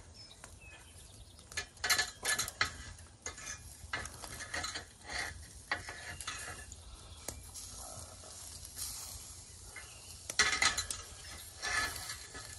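A metal utensil scraping and clinking against a frying pan as sliced peppers and onions are stirred in oil over a campfire, in short bursts with light sizzling between them; the loudest clatter comes about ten seconds in.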